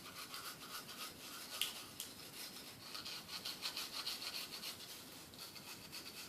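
Hard-bristle toothbrush scrubbing a Nintendo Switch main board wet with lighter fluid, in quick back-and-forth strokes, several a second, with one sharp click about a second and a half in. The board is being scrubbed to clear liquid-damage residue.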